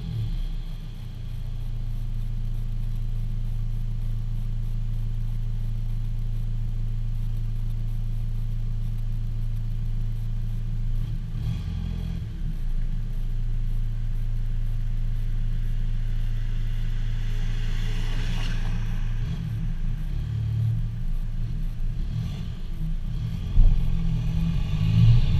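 VW Golf Mk5 2.0 PD140 TDI four-cylinder diesel, with its muffler and DPF deleted, idling with a steady low exhaust drone. There are brief unsettled moments about 11 and 20 seconds in, and a louder rev starts near the end.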